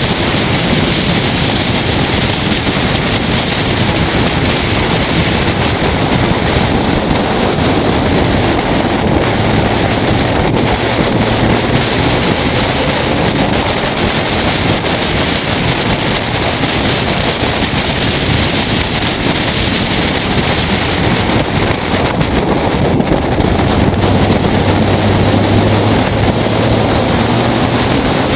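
Race car running at speed on a circuit, heard from a camera mounted on its outside bodywork: a steady, loud rush of wind over the microphone with the engine running underneath.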